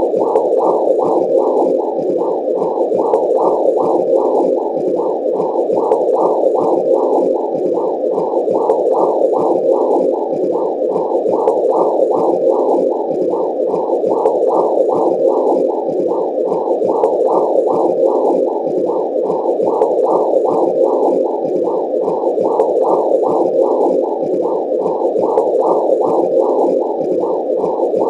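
Womb sound: a low, muffled whooshing noise pulsing evenly about two and a half times a second, like blood flow heard from inside the womb.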